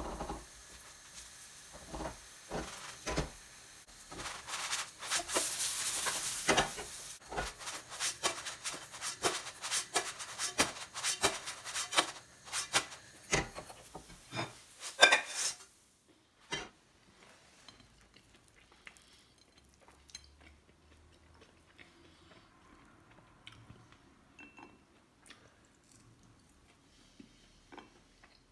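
A silicone spatula knocking and scraping against a nonstick frying pan as a kimchi pancake is worked loose and flipped, with the batter hissing in the hot oil. The knocks come irregularly, one or two a second, and stop about sixteen seconds in, leaving only faint room noise.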